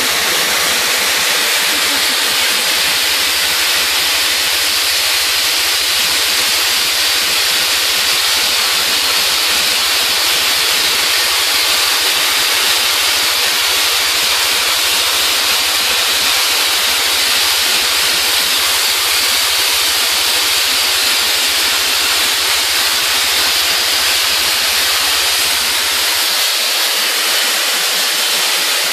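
Vapor abrasive blasting nozzle spraying crushed recycled glass and water onto old wood, stripping paint and stain: a loud, steady hiss.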